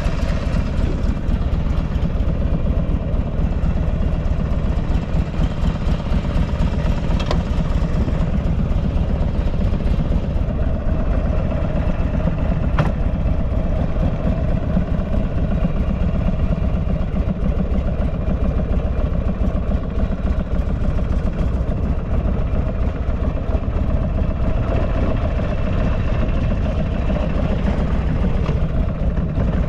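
Buell XB12Ss Lightning Long's air-cooled 1203 cc V-twin idling steadily, running smoothly with no abnormal noises.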